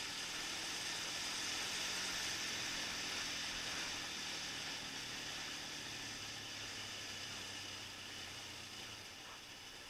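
Suzuki LT-Z400 quad's single-cylinder four-stroke engine running at low revs under a steady hiss of wind and road noise, the whole sound slowly fading toward the end.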